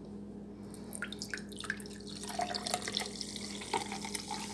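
Coca-Cola poured from a bottle into a glass: the liquid splashes and fizzes with a crackle of bursting bubbles starting about a second in, with a few glugs from the bottle.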